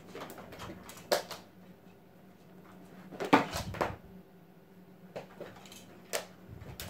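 A kitten scampering and pouncing after a string toy: scattered soft thumps and scrabbling of paws on a wooden floor and shaggy rug, the loudest flurry a little past three seconds in.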